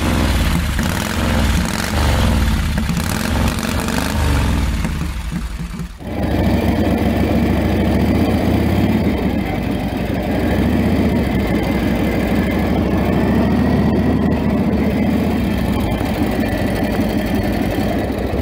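SOKÓŁ 1000 (CWS M111) heavy motorcycle's V-twin engine running. There is a cut about six seconds in from one recording to another, after which the engine runs steadily.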